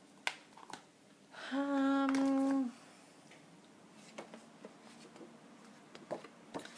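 A woman hums one steady, level note for about a second. Around it come light clicks and taps of paper and card being handled on a desk, with a sharper click near the start.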